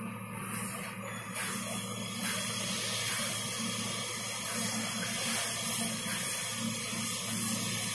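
Nissan SR20 twin-cam 16-valve inline-four running steadily at idle on a test stand, with a steady hiss over the engine's even low note.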